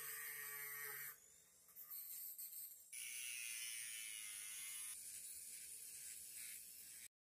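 Flex-shaft rotary tool spinning a small cutting disc through metal bar stock: a high-pitched grinding whine with hiss, its pitch wavering as the disc bites. It comes in short stretches that change abruptly about a second in and again near three seconds, and cuts off suddenly near the end.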